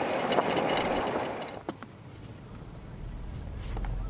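Steady rushing road noise from a moving vehicle that drops away sharply about a second and a half in, leaving a faint low rumble with a couple of clicks.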